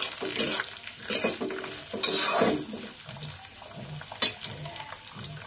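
A spatula scraping and stirring diced carrot, tomato and chilli around a black iron kadhai, over a light sizzle of frying vegetables. The stirring strokes come in the first half, then it settles to the sizzle with one more click.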